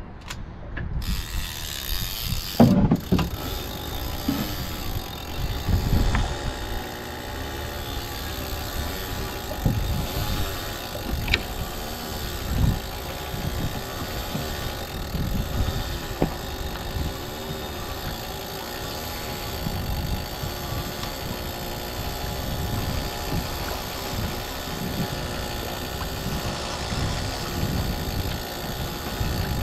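Fishing reel being wound in steadily, its gears and mechanism running, with wind buffeting the microphone in gusts.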